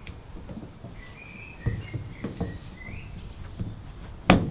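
Plastic and metal handling noises as a Mercedes Sprinter door handle is worked back into place: scattered light taps and knocks, then one loud sharp click near the end as the handle snaps on. A faint high chirping runs through the middle.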